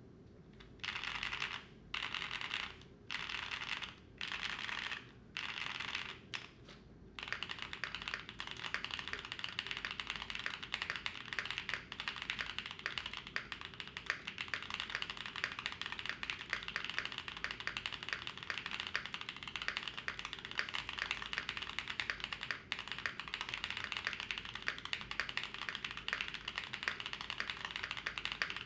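Mechanical keyboard with Keybay W1 Diamond linear switches (POM stem, nylon housings, pre-lubed) being typed on, with a clacky sound. It starts with about five short bursts of fast key presses, each about a second long, then turns into continuous rapid typing from about seven seconds in.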